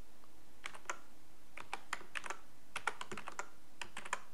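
Typing on a computer keyboard: a run of irregular keystrokes starting about half a second in, as a password is entered.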